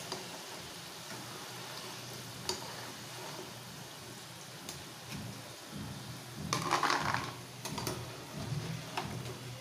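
Potato fries deep-frying in hot oil with a steady sizzle, and a wire skimmer clicking against the pan now and then as fries are scooped out. There is a louder burst of scraping and clatter about two-thirds of the way through.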